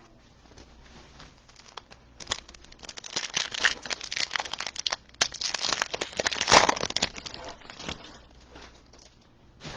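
Crinkling and tearing of a trading card pack wrapper being ripped open and handled: a dense run of crackly rustling that starts about two seconds in and dies away near the end.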